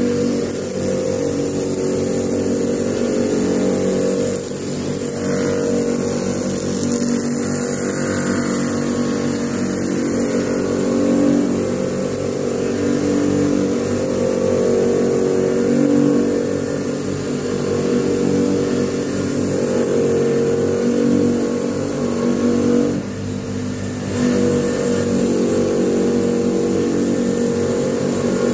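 Fujita bench grinder's electric motor running with a steady multi-tone hum while a steel sword blade is held against the spinning polishing drum on its shaft, the sound swelling and easing as the blade is worked. The level drops briefly about four-fifths of the way through.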